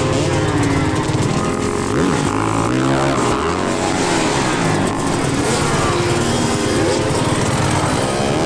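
Several dirt bike engines running and revving, their pitches rising and falling over one another.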